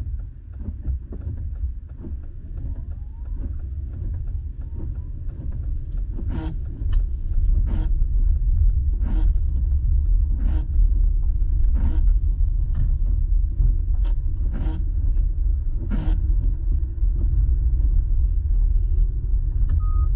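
Car interior road and engine rumble, growing louder as the car pulls away and picks up speed, with the windshield wipers sweeping about once every second and a half, each stroke a short sharp sound. A brief beep near the end.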